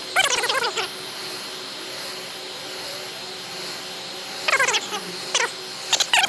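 A heat gun set on low runs with a steady fan hiss. Over it come short, pitched animal calls in the first second and again several times near the end.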